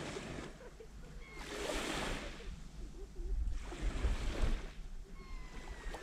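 Small sea waves lapping onto a sandy shore, each wash swelling and fading about every two seconds.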